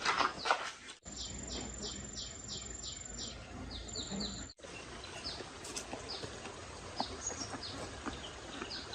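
Small birds chirping: short, high, falling notes repeated about two or three times a second, with a steady thin high tone behind them for a few seconds, then looser scattered chirps. A brief louder, noisy sound comes just before the first second.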